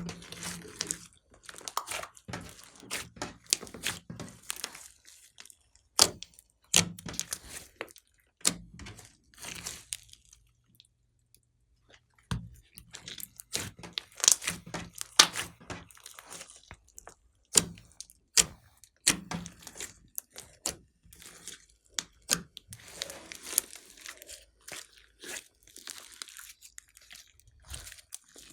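Glossy slime being squeezed, stretched and pressed by hand, giving irregular sticky pops, clicks and crackles as air pockets burst, with a short lull partway through.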